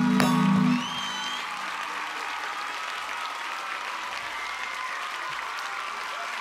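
Concert crowd applauding. The band's final held low note cuts off a little under a second in, leaving only the clapping.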